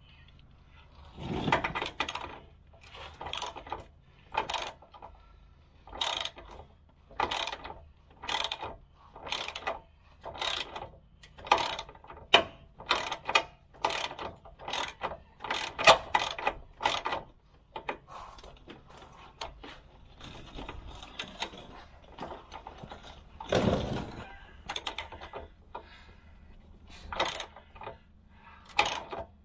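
Hand socket ratchet on an extension bar clicking in short repeated strokes, about one or two a second, as it works a rusty chassis bolt. The strokes pause for a few seconds past the middle, then comes one heavier knock before the clicking resumes.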